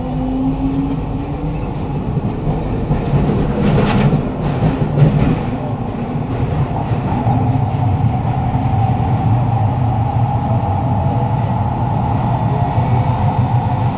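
Kawasaki-CRRC Sifang C151A metro train accelerating out of a station and running into a tunnel, heard from inside the carriage. A motor whine rises in pitch near the start, a few clatters come about four to five seconds in, and it then settles into a steady running rumble with a steady hum.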